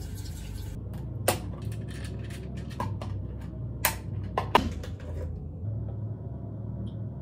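Several sharp clicks and knocks of small plastic toiletry items being handled at a bathroom sink, over a low steady hum.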